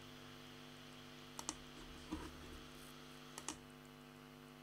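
A few faint clicks, two quick pairs about two seconds apart, over a steady low electrical hum.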